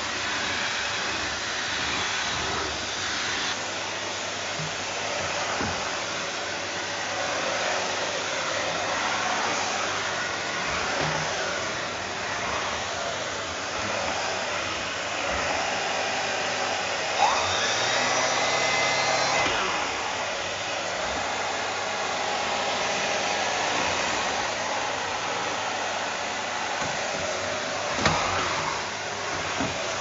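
Vacuum cleaner running steadily with a Maxorado turbo nozzle, whose brush roller is spun by the suction air, worked over a rug and then a foam floor mat. About halfway through, a whine rises in pitch, holds for a couple of seconds and falls away.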